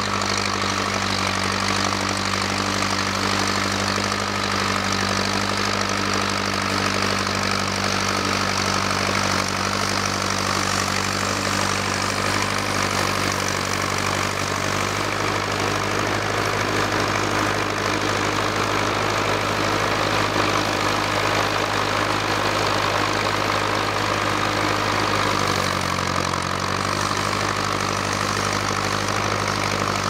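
Zetor Crystal 8011 tractor's four-cylinder diesel engine running steadily under load as it pulls a plough through the soil. Its note dips briefly near the end.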